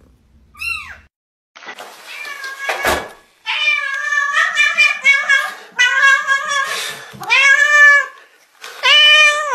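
A cat meowing loudly and insistently: a string of long, drawn-out meows one after another, as a cat greets its owner. There is a single sharp knock about three seconds in.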